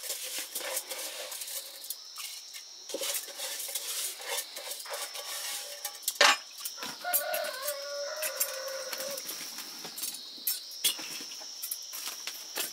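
A rooster crows once, about seven seconds in, for about two seconds, amid scattered clinks and taps of dishes and utensils. A steady high-pitched whine runs underneath.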